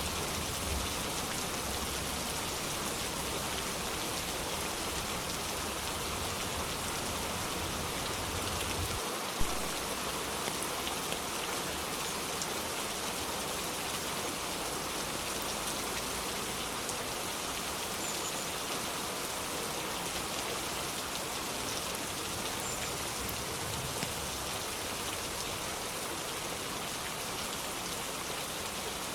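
Steady rain falling, an even hiss of drops, with one sharp knock about nine seconds in.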